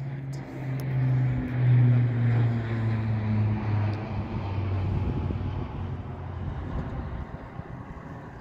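Low-flying military transport plane passing overhead. Its engine drone is loudest about two seconds in, then drops in pitch and fades as the plane goes by.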